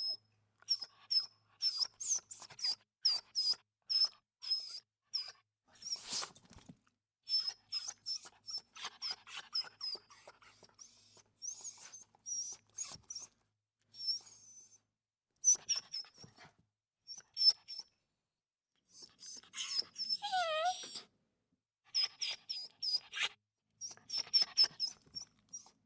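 Dog whimpering: many short, high-pitched whines in irregular bursts with short pauses between them. About twenty seconds in comes a longer, lower whine whose pitch wavers.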